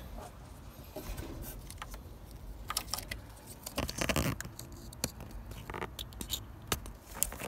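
Plastic wiring-harness connectors being handled and pushed together by hand: light plastic clicks and scraping, with a louder scrape about four seconds in.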